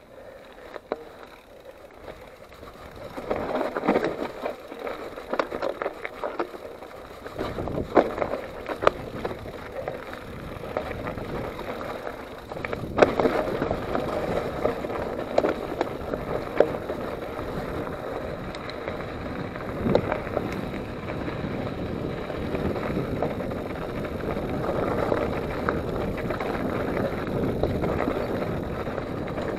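Mountain bike riding over dirt and loose stones: steady tyre noise on the trail with scattered sharp knocks and rattles of the bike over rocks. It gets louder and rougher about halfway through.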